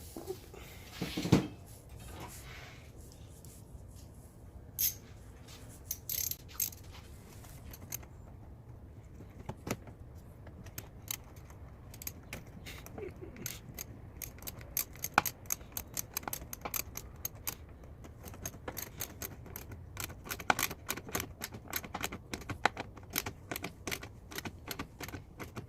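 Hand ratchet with a 1/4-inch socket clicking as a clamp is tightened, with metal tools clinking: a few scattered clinks at first, then a long run of rapid clicking from about ten seconds in.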